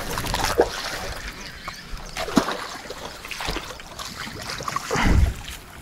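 Hooked snakehead splashing and thrashing through shallow, weedy water as it is reeled in to the bank, with a louder, heavier splash about five seconds in.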